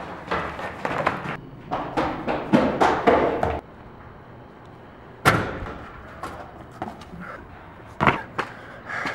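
Rapid running footsteps pounding up concrete stairs, then a door banging shut about five seconds in, followed by more running footsteps with a heavy thud near the end.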